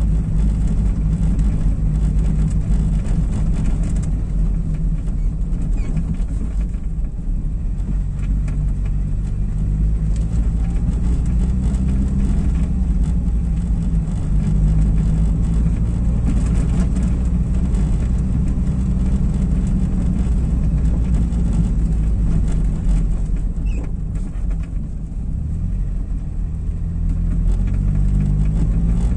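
A car's engine and tyre noise heard from inside the cabin while driving on brick paving, a steady low rumble whose engine note rises and falls with speed. It eases off a few seconds before the end and then builds again.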